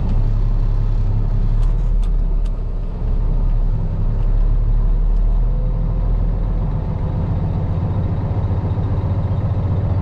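Semi truck's diesel engine heard from inside the cab as the truck pulls away, a steady low hum with a brief dip about three seconds in and a change in the engine note around seven seconds in.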